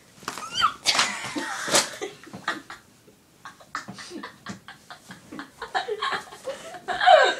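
Girls laughing in short broken bursts, with a brief high squeal about half a second in.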